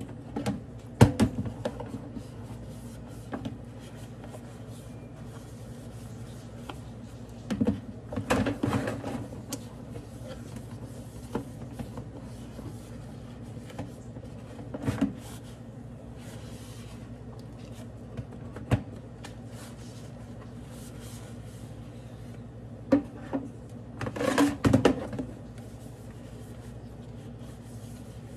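Dishes being hand-washed in a stainless-steel sink: a sponge scrubbing plastic containers, with occasional knocks and clatters as pieces are handled and set down. A steady low hum runs underneath.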